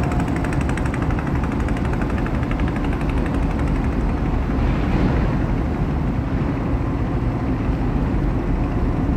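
A small harbour boat's engine running steadily close by with a rapid, even chugging, over the wash of water.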